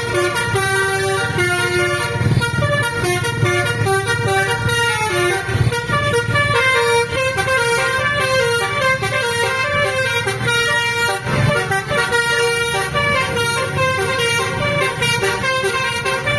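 Indonesian 'telolet' multi-tone musical horn playing a quick melody of stepped notes without pause, over a low rumble.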